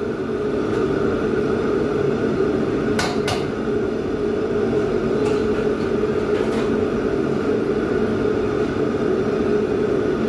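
Steady noise of a commercial wok station, its gas wok burner and extractor hood fan running, with two sharp metal clinks about three seconds in.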